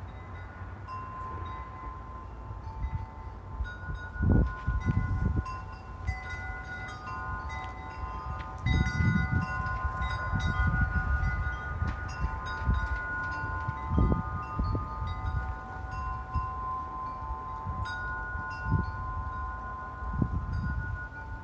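Chimes ringing: many overlapping steady ringing tones that come and go, with wind gusting on the microphone now and then.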